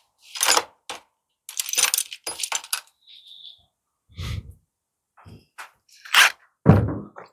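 Metal hand tools clinking and rattling in short irregular bursts, as if being sorted through for a 10 mm spanner or socket, with two dull thumps, the second near the end the loudest.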